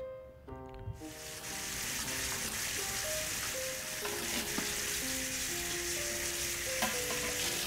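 Soft music of held, slowly changing notes over a steady hiss that comes in about a second in and holds level.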